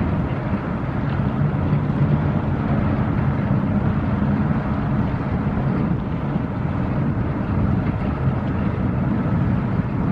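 Steady low rumble of a passing inland motor cargo ship's diesel engine, with wind buffeting the microphone.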